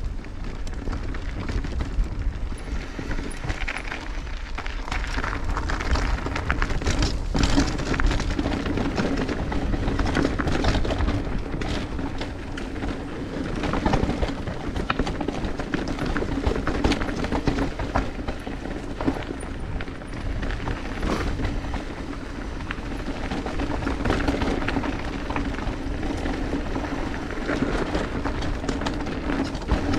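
Mountain bike riding down a dirt trail: tyres rolling over rough ground and the bike rattling, with frequent short knocks over a steady rumble.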